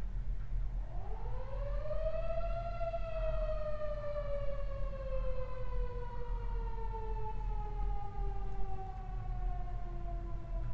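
A siren sounding one long wail: it rises steeply in pitch over about two seconds, then falls slowly and steadily.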